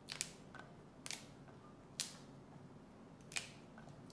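Yardlong beans snapped by hand into short pieces over a clay mortar: a few crisp snaps, about one a second.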